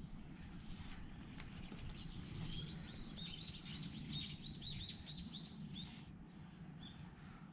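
Small songbirds chirping in a quick, dense run of short arching high notes, busiest from about two to six seconds in, over a low steady rumble of background noise.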